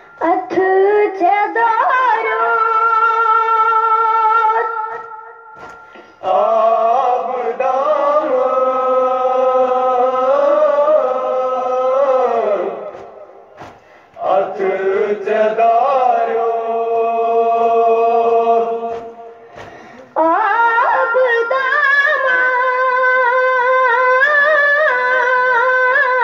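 A boy's voice chanting a noha lament in long, drawn-out melodic phrases without clear words. There are four held phrases of about six seconds each, wavering and gliding in pitch, with short breaks between them.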